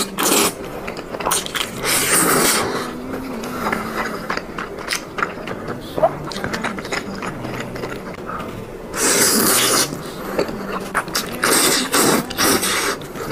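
Thick stir-fried rice noodles being slurped in four or five long, wet sucks, with chewing and mouth noises between, close to the microphone.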